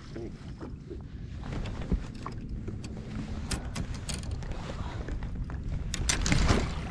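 Wind rumbling on the microphone and water lapping at a bass boat's hull, with scattered small splashes and knocks as a hooked bass is brought to the landing net. A louder burst of splashing and rattling comes near the end, as the fish reaches the net.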